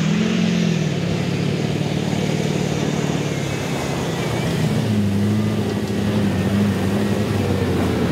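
Oshkosh JLTV's Banks 866T turbo-diesel V8 (a modified 6.6-litre GM Duramax) pulling the truck along a gravel and mud track, its note swelling about half a second in and climbing again near five seconds in as it accelerates.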